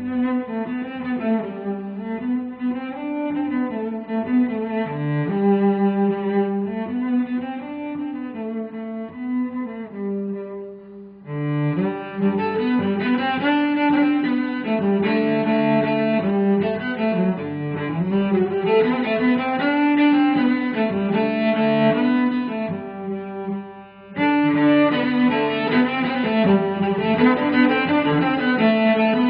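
Instrumental music with bowed strings carrying a low, cello-like melody. It thins out briefly about eleven seconds in and again near twenty-four seconds, each time coming back fuller.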